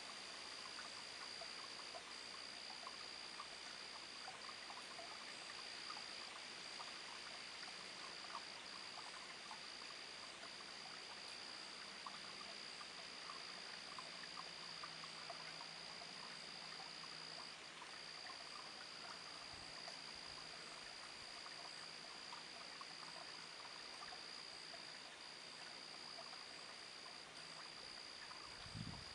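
Faint night chorus of frogs and insects: a steady high-pitched insect trill with brief breaks every couple of seconds, over scattered small frog calls. A short low thump comes near the end.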